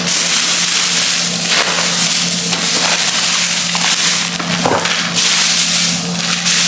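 Plastic wrapping crinkling and rustling as shopping is handled and unpacked, continuous and crackly, over a steady low hum.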